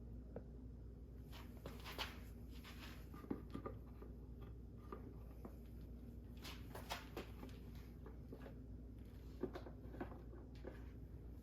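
Faint, scattered clicks, taps and light rubbing from hands handling engine parts and a tube of assembly lube, over a steady low hum.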